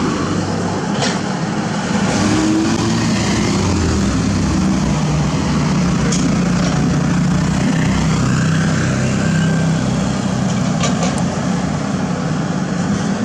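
Diesel engines of a hydraulic mini excavator and a loaded dump truck running steadily, the engine note rising and falling as the excavator works, mixed with passing road traffic. A few sharp knocks sound about a second in, around six seconds in and near the end.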